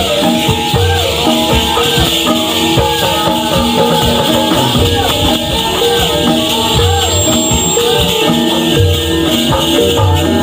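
Traditional dance music with melodic pitched notes and low drum strokes, under a steady shimmering jingle of Gedruk dancers' leg bells (gongseng) shaken by their stamping steps.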